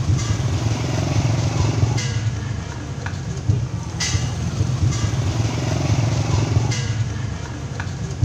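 Small step-through motorcycles riding slowly past close by, their engines a steady low rumble, with a short crash-like hiss about every two seconds.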